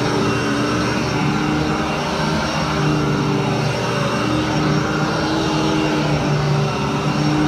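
Royal commercial upright vacuum cleaner running steadily as it is pushed over carpet: a constant motor hum with a higher whine above it.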